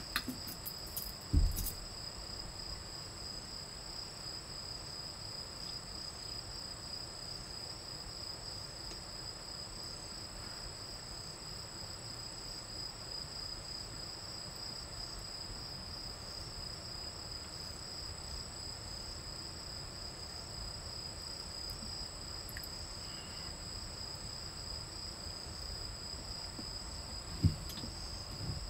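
Steady high-pitched trilling of night insects, two continuous pitches, one with a slight pulse. A loud knock on the wooden table comes about a second in and another near the end.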